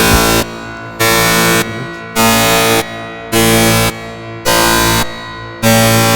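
Alarm sound effect, like a bank alarm: a harsh buzzing tone in even, loud blasts about once a second.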